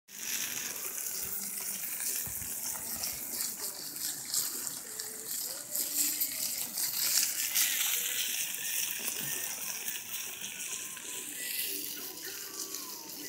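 Wood campfire burning with a steady hiss and scattered crackles, thickest in the middle of the stretch; faint voices in the background.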